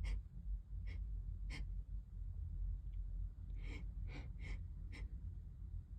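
A person's short, sharp breaths, about seven of them in two clusters, caught between sneezes in an allergy sneezing fit.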